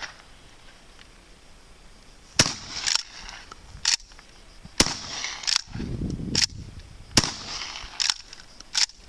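Sharp mechanical clacks from a Hatsan Escort Aimguard pump-action shotgun being handled and worked, about eight of them spread over the last seven seconds, with a brief low rumble in the middle.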